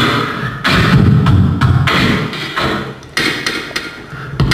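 Human beatbox drum sounds made into a handheld microphone and amplified through a mixing desk: low kick-drum thumps and sharper clicking and hissing hits in an uneven pattern.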